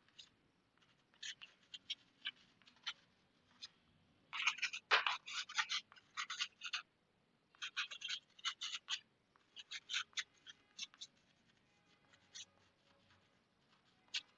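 Chalk writing on a blackboard: quick scratching and tapping strokes in short runs, separated by brief pauses.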